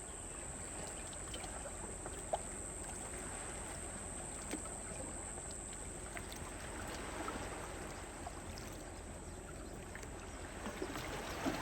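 Shallow water lapping and trickling among shoreline rocks: a soft, steady wash with scattered small ticks.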